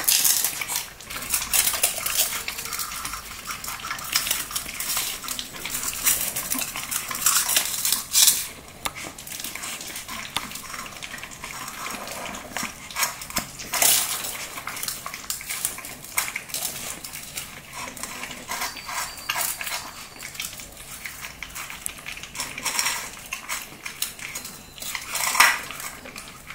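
Shih Tzu puppies eating dry kibble from a stainless steel bowl: a steady run of small clicks and clinks as kibble and teeth knock against the metal. The louder clinks come about eight seconds in, at fourteen seconds, and again near the end.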